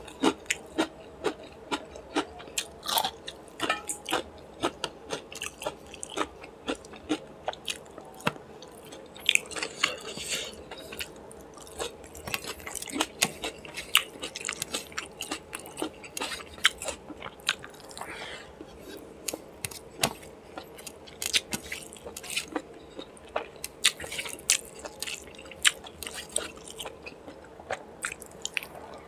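Close-miked chewing and eating by hand of rice with chicken liver and gizzard curry, with many sharp mouth smacks and clicks, several a second.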